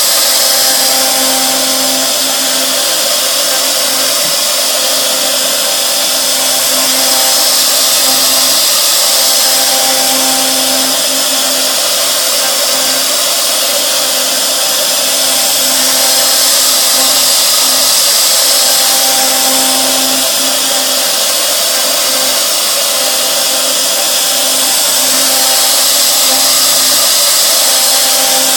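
CNC machine cutter milling a model plank of tooling board: a steady, loud machining noise with a few held tones, swelling and easing about every nine seconds as the cutter works across the board.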